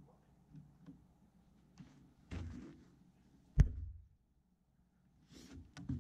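A single shot from a mil-spec AR-15 rifle with a standard birdcage flash hider: one sharp crack a little past halfway, with a short echo after it. A brief rustle comes about a second before the shot.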